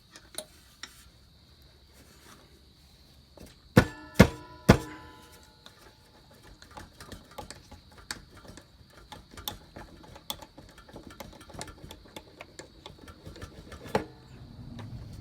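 Three sharp metal clanks in quick succession, about four seconds in, each ringing briefly. Then a long run of light clicks and taps from metal tools and parts being handled, with one louder knock near the end.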